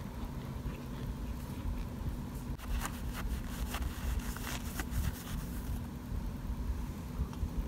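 Plastic spoon scooping through baked cornstarch chunks: a scatter of soft crunches and crackles from about three to six seconds in, over a steady low hum.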